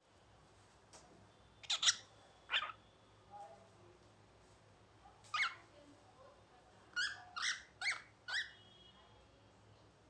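Cockatiel chattering in short chirps and squawks, some sliding downward in pitch. A few calls come spaced apart, then a quick run of four near the end.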